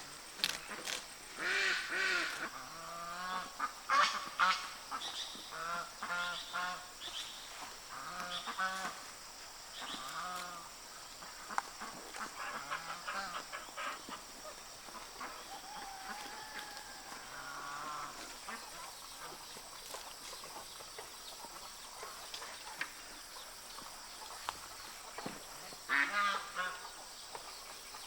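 Farm poultry calling: a long series of short, repeated calls for most of the first eighteen seconds, then another burst of calls near the end.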